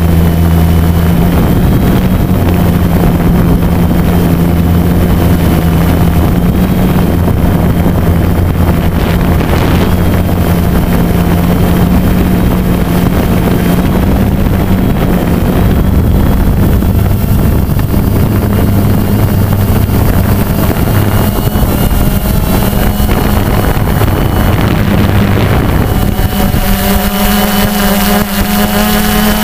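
Multirotor drone's electric motors and propellers running steadily in flight, a loud even hum with wind noise on the on-board microphone. Near the end the pitch shifts and more tones join in as the motor speed changes.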